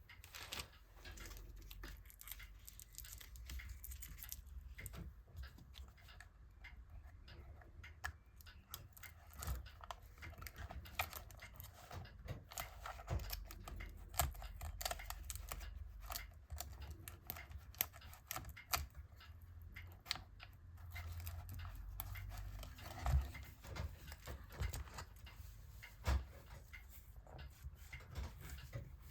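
Faint, scattered clicks, taps and rustles of hands handling and fitting a replacement laptop screen panel into the lid, over a low steady hum.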